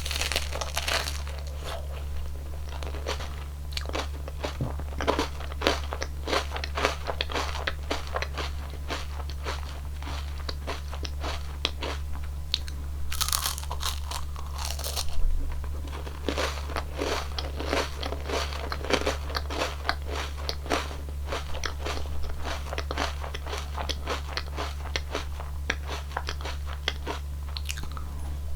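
Close-miked crunching and chewing of an ice cream cone's wafer and topping, a run of crisp cracks with louder bites at the start and about 13 seconds in.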